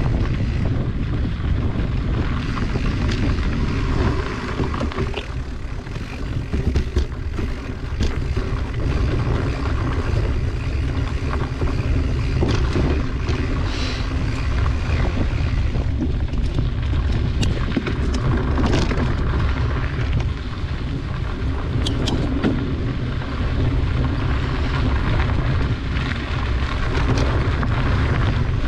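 Riding a mountain bike along a dirt trail: steady low wind buffeting on the microphone and tyre noise on dirt and dry leaves, with scattered clicks and rattles from the bike.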